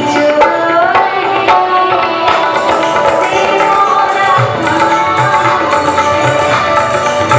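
Indian folk-music accompaniment: tabla playing a steady rhythm under harmonium and a bending melodic line, with deep bass-drum strokes of the tabla coming in more clearly in the second half.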